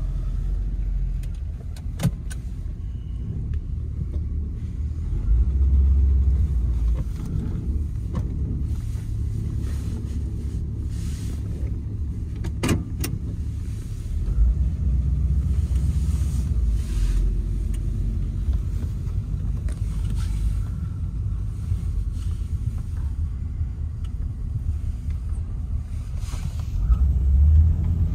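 1957 Chrysler Imperial's V8 running as the car drives slowly, heard from inside the cabin: a steady low rumble that swells three times as it pulls ahead. A few sharp clicks sound along the way.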